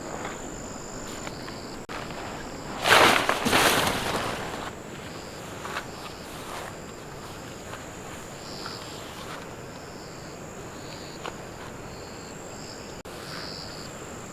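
Forest insects, crickets among them, trilling steadily with repeated high chirps. A loud rustling burst comes about three seconds in, followed by a few softer rustles.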